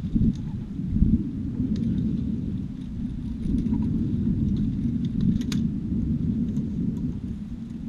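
Wind buffeting the camera microphone on an open boat deck, a steady low rumble that rises and falls, with a few faint clicks and knocks from handled fishing tackle.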